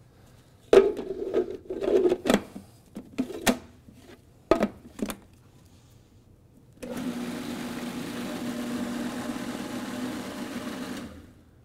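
A few sharp clicks and knocks from handling the food processor's lid and bowl. About seven seconds in, the food processor motor starts and runs steadily for about four seconds, puréeing thick lima bean hummus thinned with a little water, then stops.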